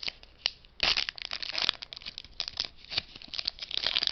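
A trading-card pack's foil wrapper being torn open and crinkled by hand: a fast, irregular run of crackles, loudest about a second in.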